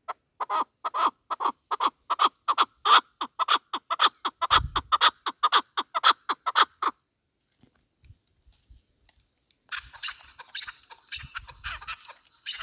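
Chukar partridge calling a fast run of short clucking notes, about four to five a second, which stops about seven seconds in. A rustling noise follows near the end.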